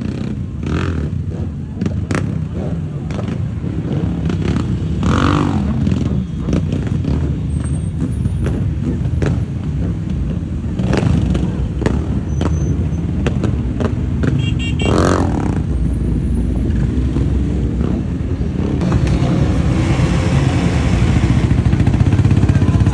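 A group of sport motorcycles and quad bikes running together at low speed, a dense engine rumble with riders blipping the throttle in sharp revs about three times, and engines climbing in pitch near the end.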